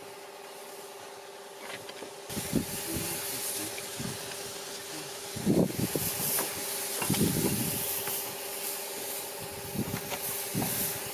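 Anti-moss treatment spraying from a nozzle on a long pole lance onto clay roof tiles: a steady hiss of spray that starts about two seconds in, with a few low thumps.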